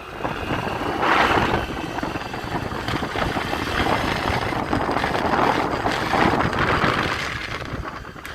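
Honda Activa scooter running, its engine and belt-driven transmission giving out a steady mechanical noise that swells and eases a couple of times. The noise is the gearbox complaint being demonstrated: the belt is cut and the clutch pulley worn.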